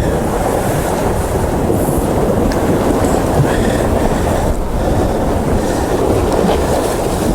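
Steady, loud rumbling noise of wind on the microphone and heavy sea swell against the shore rocks.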